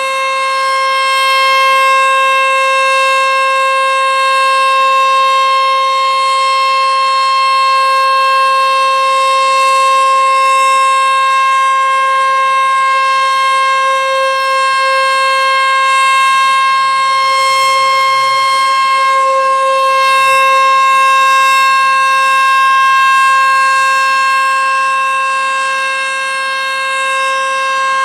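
Sentry 14V-B outdoor storm warning siren sounding its steady Alert tone during a test, holding one pitch throughout while its loudness gently swells and dips.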